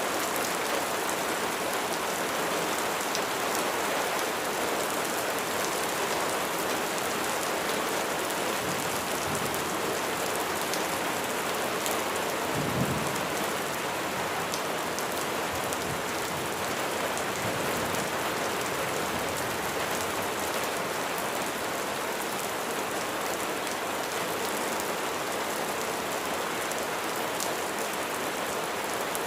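Steady rain falling, an even hiss of drops on surfaces, with a brief low thump about halfway through.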